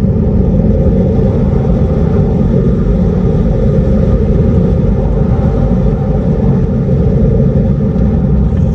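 Hyundai IONIQ 5 electric car on the move, heard from inside its front trunk: a steady, heavy low rumble of motor and road noise, with faint steady tones from its pedestrian warning sound (VESS).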